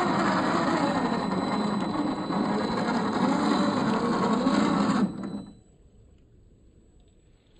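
Electric motor and geared drivetrain of a 1/10-scale RC crawler running as it drives, with a whine that wavers in pitch, cutting off about five seconds in and leaving only a faint background.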